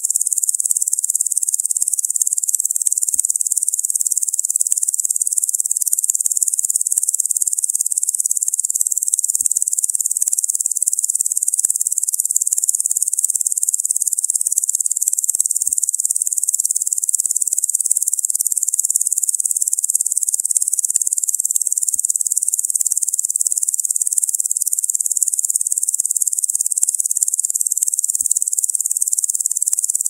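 Dense insect chorus, given as the sound of locusts: one steady, high-pitched shrill buzz that does not change, with no lower sounds beneath it.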